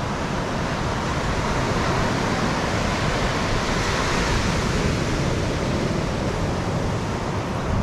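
Steady rush of surf washing on the shore, with wind rumbling on the microphone.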